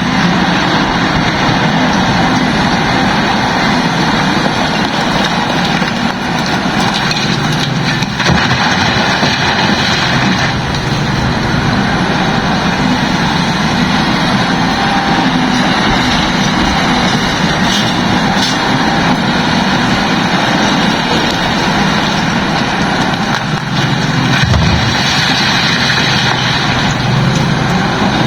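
Heavy diesel machinery running steadily: an excavator working beside a truck, with engine noise throughout.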